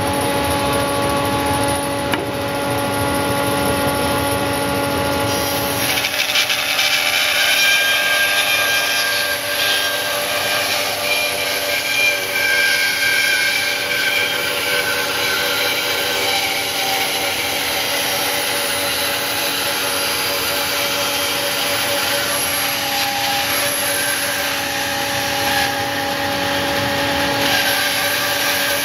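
Hammer N3800 bandsaw with a 3/4-inch SuperTuff Fastcut blade running free with a steady hum. About six seconds in, the blade enters 150 mm (6-inch) oak and resaws it, a continuous sawing noise that swells and eases as the board is fed through.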